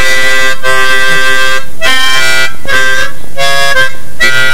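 A child playing a chromatic harmonica in about six short breathed chords, several reeds sounding at once with brief gaps between breaths, trying out a hand vibrato that makes the notes waver.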